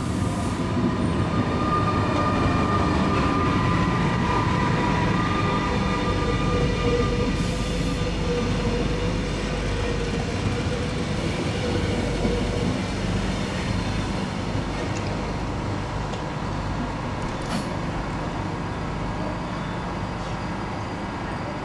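Electric passenger trains rolling past: an SBB locomotive-hauled intercity and a Thurbo Stadler GTW railcar. Wheels on rail give a steady rumble, with a whine in the first half that fades out.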